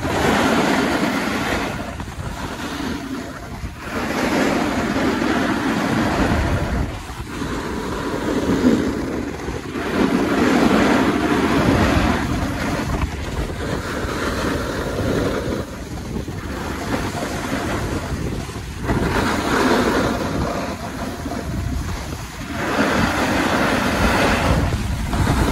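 Wind rushing over the microphone during a fast run down a groomed ski slope, with the hiss and scrape of edges carving the snow. The noise swells and eases every two to three seconds, in time with the turns.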